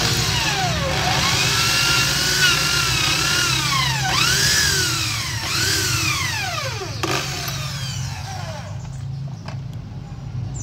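Electric hand drill driving a tap into the clutch-side crankcase of a Vespa, re-threading a stripped clutch-cover bolt hole. The motor whine rises and falls several times as the speed changes and the tap bites, then stops about eight seconds in, over a steady low hum.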